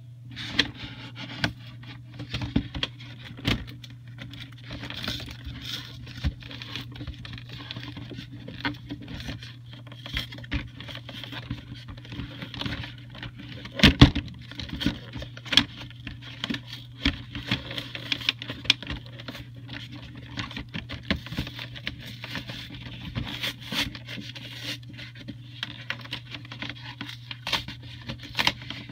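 Hands working open a boxed trading-card collection: irregular taps, clicks and scrapes of cardboard and plastic packaging, with one louder knock about halfway through, over a steady low hum.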